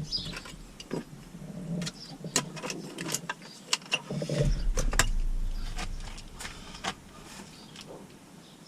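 Plastic car-door trim pieces being handled and pressed into place: a scatter of sharp clicks and light knocks. A low rumble swells about four seconds in and slowly fades.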